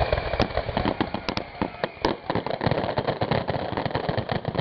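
Fireworks going off in a rapid, dense string of bangs and crackles, many reports a second without a break.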